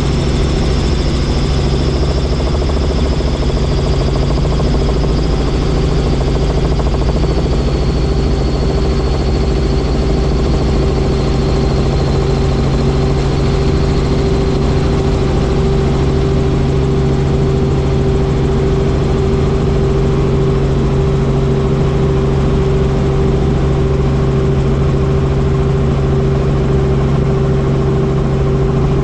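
Helicopter engine and rotor running steadily, with a high turbine-like whine that slowly drops in pitch during the first half.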